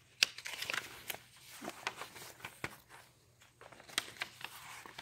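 Paper pages of a handmade altered book rustling and flicking as they are turned and handled, with a sharp paper snap just after the start and scattered soft clicks and rustles after it.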